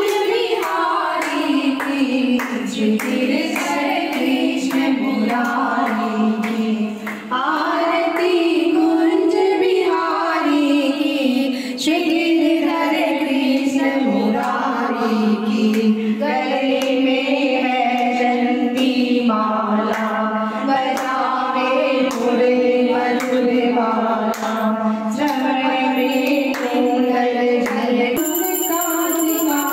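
Several women singing a Hindu devotional aarti song together, with a regular beat throughout.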